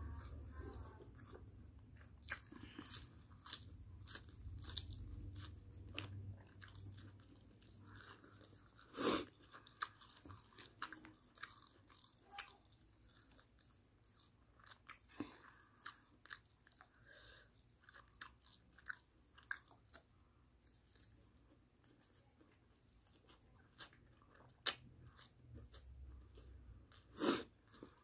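A person chewing and biting barbecued chicken with rice close to the microphone, with many small wet clicks and smacks. There are two louder sharp sounds, about a third of the way in and near the end.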